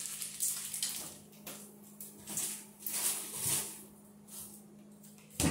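Water bubbling and splashing in a cooking pot as corn and potatoes boil, in irregular bursts over a steady low hum.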